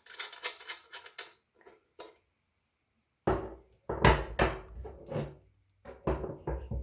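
Screws being undone by hand with light clicks and scraping, then a series of loud knocks and clunks as the metal gooseneck light arms are worked free.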